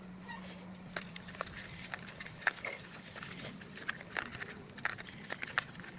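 Homemade slime being squished and pulled by hand, making irregular wet clicks and small pops, over a steady low hum.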